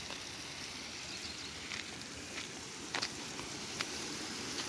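Footsteps through dry grass and twigs, with about five sharp crackles and snaps over a steady, quiet hiss.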